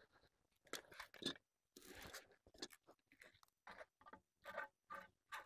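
Faint, irregular crunching and scraping of hands working at a plastic pool return fitting, trying to unscrew it.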